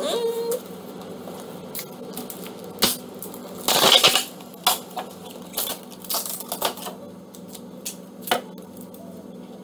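Stiff clear plastic blister packaging crackling and clicking as it is pried open by hand, with a louder crinkling burst about four seconds in.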